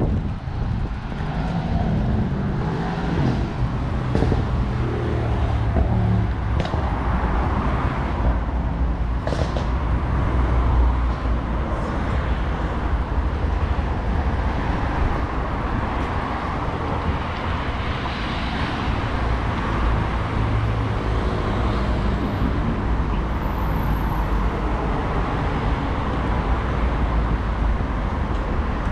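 Steady road traffic on a busy city avenue: cars going by, with engines standing out close by near the start and again later on.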